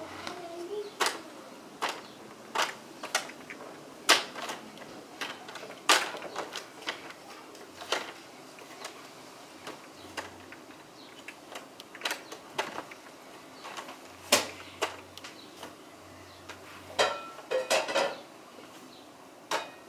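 Sulcata tortoise grazing on lawn grass: irregular sharp snaps as its beak bites and tears off blades, about one every second or two.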